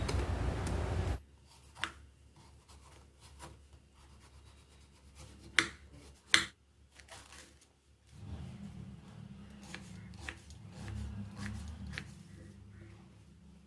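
Knife peeling and cutting a raw jackfruit: scattered scrapes and small taps, with two sharp knocks about halfway through.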